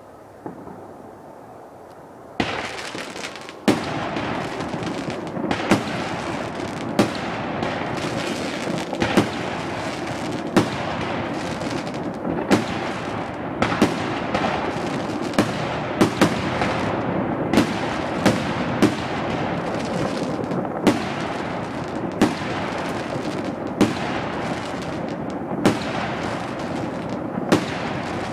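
Consumer fireworks going off. From about two seconds in, a dense, continuous crackle and hiss runs on, with sharp loud bangs every one to two seconds on top of it.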